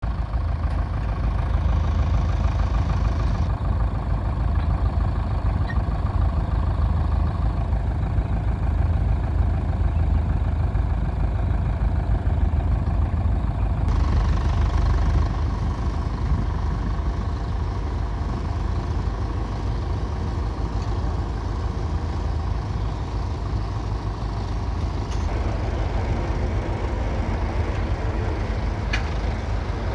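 1938 Fordson Model N tractor's 3.6-litre four-cylinder diesel engine running steadily with a deep, low rumble, its sound changing abruptly a few times.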